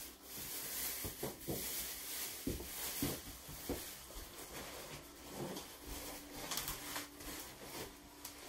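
Cardboard box and its packing being handled as a TV is worked loose inside it: irregular rustling, scraping and soft knocks.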